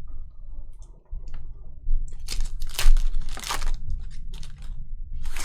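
Crinkling and tearing of a trading-card pack's foil wrapper being ripped open, in quick rustling bursts.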